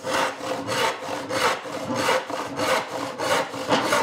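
Hand panel saw cutting through dry wood with steady back-and-forth strokes, about two a second, the teeth rasping in the kerf.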